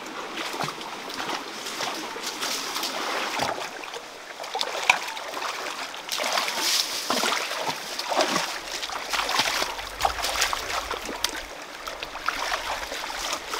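Water splashing and sloshing irregularly as hands and feet move through a shallow rocky stream, over the steady rush of the flowing water.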